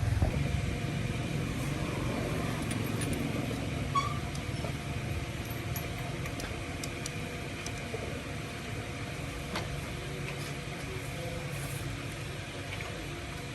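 A motor running steadily with a low rumble, and a few light clicks and taps over it.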